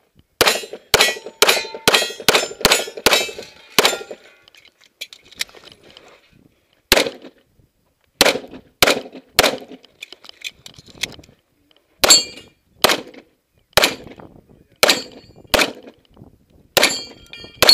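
1911 pistol firing: a fast string of about nine shots in the first four seconds, then slower single shots and short strings with pauses between them. The shots are mixed with metallic clangs of bullets hitting steel targets.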